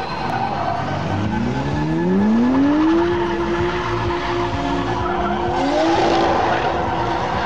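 A drift car's engine revving up over about two seconds and held at high revs while its tyres squeal through a long slide, with another rise in revs near the end.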